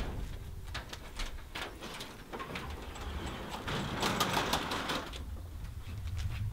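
Up-and-over garage door being swung open, a noisy scraping rush from about two and a half to five seconds in, between scattered footsteps.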